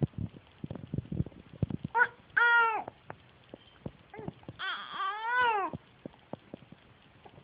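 Three high wailing calls from a voice, each rising and then falling in pitch, the last and longest about five seconds in, with soft knocks and clicks in between.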